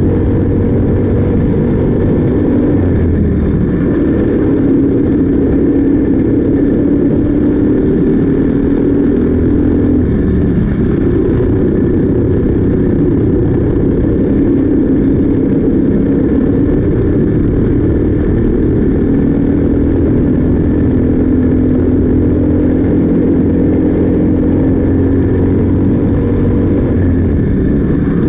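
Briggs & Stratton LO206 single-cylinder four-stroke kart engine running at racing speed, heard from on board the kart. Its note drops and climbs back several times as the kart slows for corners and accelerates out.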